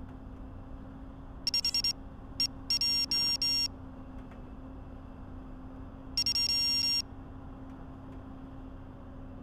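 A Cineape25 FPV quadcopter, downed in a puddle after a crash, beeping electronically. There is a quick run of four short beeps about one and a half seconds in, a single beep, three longer beeps around three seconds, and one long beep near seven seconds, over a faint steady hum.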